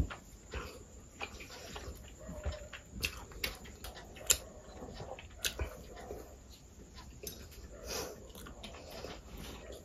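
Close-miked chewing of a mouthful of paan: wet mouth clicks and smacks coming irregularly, one sharper click a little past the middle.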